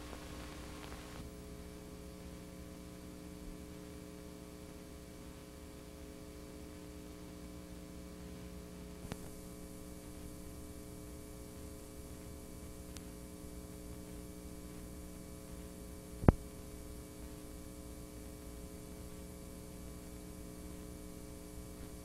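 Steady electrical mains hum with faint hiss from the blank, unrecorded end of a videotape transfer. There is a small click about nine seconds in and a sharp, louder click about sixteen seconds in.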